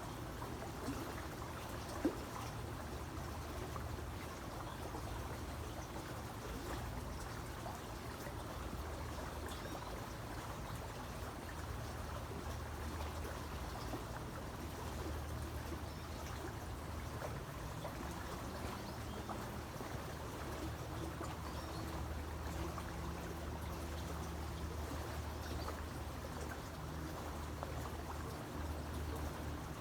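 Creek water running and trickling steadily, with a low hum underneath that rises briefly in pitch about two-thirds of the way through. A single sharp click sounds about two seconds in.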